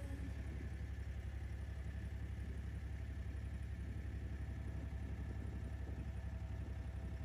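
Diesel engine of a wooden abra water taxi running steadily as the boat moves, a low, even throb.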